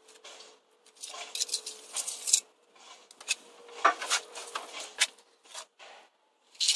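Steel pointing trowel scraping mortar off a hawk and pressing it into brick joints: a run of short, irregular scrapes and clicks.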